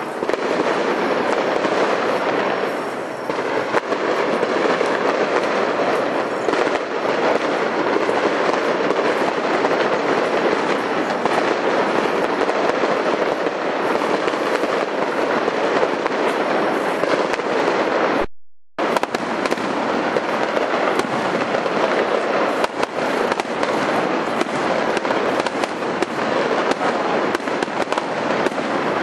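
Large aerial fireworks display: a dense, unbroken crackle of many shells bursting at once. The sound cuts out completely for about half a second about two-thirds of the way through, then resumes.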